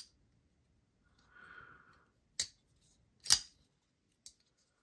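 Oden Custom Knives Sine MT folding knife, with a Damascus blade and fat carbon handle, being flicked: sharp metallic snaps of the blade action, one about two and a half seconds in, a louder one a second later and a faint click near the end. It sounds a bit like a shotgun getting racked.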